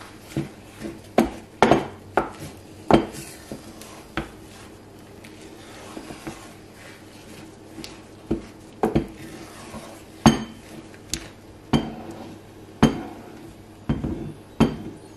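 Wooden spatula knocking and scraping against a metal saucepan while thick sweet potato fufu dough is turned and pressed, in irregular knocks about once a second with a quieter spell in the middle.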